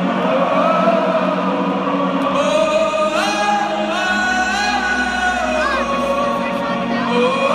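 Live rock concert in an arena: a large crowd singing along together, with the lead singer's voice rising over them in long held notes from a few seconds in, over a low sustained note.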